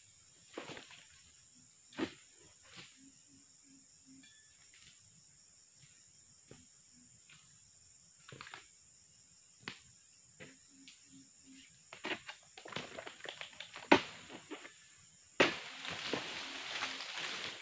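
Dry oil palm fronds and frond litter crackling and knocking as a pole-mounted palm chisel (dodos) works them and feet move over them: scattered sharp knocks, then a longer spell of dense rustling and crackling near the end. A steady high insect buzz sits behind it.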